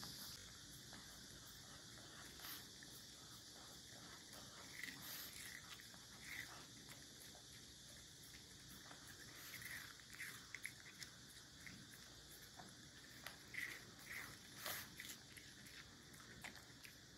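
Long-haired Chihuahua licking a frozen milk ice pop, with occasional bites: faint, irregular wet licks and small clicks, a little louder from about ten seconds in.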